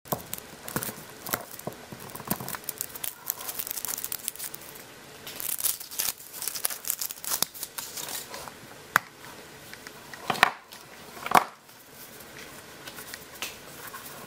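Thin wrapping, foil or plastic, crinkled and torn open by hand in a dense run of small crackles, with a few louder sharp clicks near the end.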